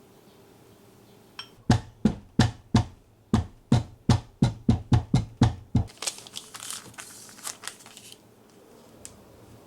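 A series of about a dozen sharp knocks, roughly three a second, followed by about two seconds of crinkling like paper or plastic being handled.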